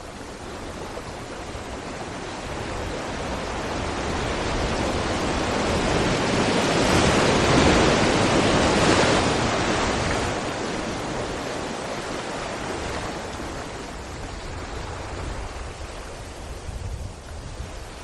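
Sea waves breaking against rocks: a surging wash of surf that swells to a peak about halfway through and then slowly recedes, over a steady low rumble.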